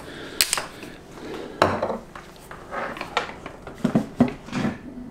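Hard plastic hose fittings and parts knocking and clattering as they are handled against a plastic water-heater housing: several separate sharp knocks, with a quick cluster near the end.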